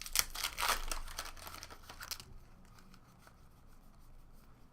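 Foil trading-card pack wrapper crinkling and tearing for about two seconds, then only faint rustles of the cards being handled.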